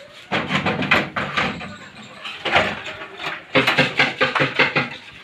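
A run of knocks, clatters and scrapes as a metal snake hook prods a small wooden box and pries its lid open.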